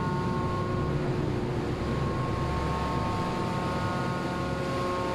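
Steady hum of a ship's machinery underway, several constant tones, over the rushing of churning sea water beneath the rudder.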